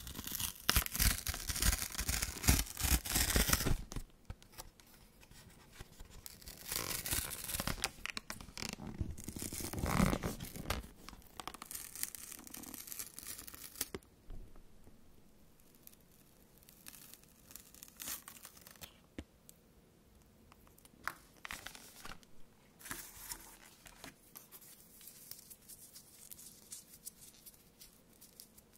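Paper backing of a blister-pack card being peeled and torn off by fingers: bursts of loud paper tearing in the first few seconds and again twice a few seconds later. After that come softer, intermittent scratchy peeling and rustling with pauses between.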